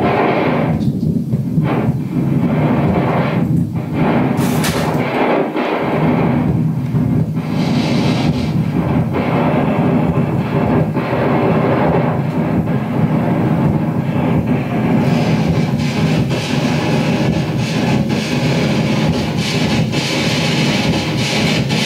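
Loud experimental noise music played live on a turntable: a dense, continuous wall of sound with a steady low hum and rough, scratchy streaks, growing brighter and hissier about fifteen seconds in.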